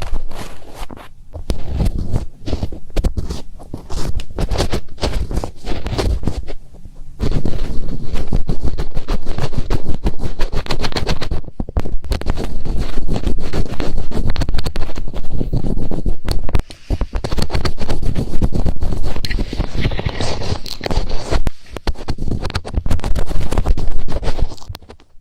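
Fingertips rubbing and scratching over the ear of a binaural ASMR microphone, a rapid run of loud scraping strokes with a deep rumble. It gets louder and denser about seven seconds in.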